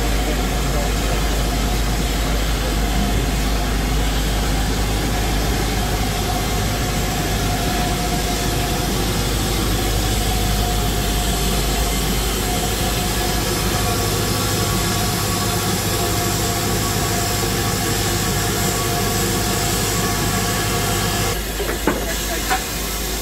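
Steady hiss and low hum around a standing steam locomotive and its train. The sound changes abruptly near the end, followed by a couple of sharp metallic knocks.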